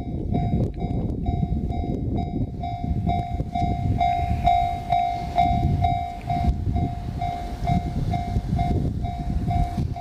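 Japanese railway level crossing alarm ringing its repeated electronic bell, about two and a half strikes a second, over the low rumble of a passing train. The bell is loudest around the middle.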